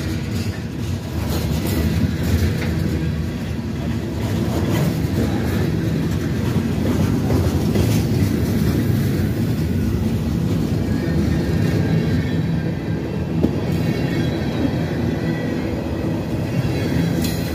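A train rolling past close by: a steady, heavy rumble from the locomotive and cars, with a few sharp clicks from the wheels on the rails.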